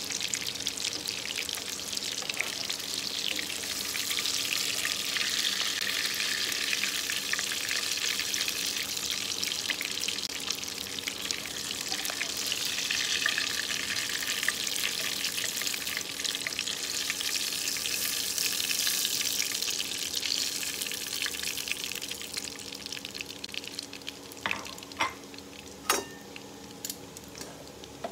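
Hot oil sizzling and crackling as pieces of food shallow-fry in a nonstick wok, with a spatula stirring and lifting them out. The sizzle eases near the end, and a few sharp clicks follow.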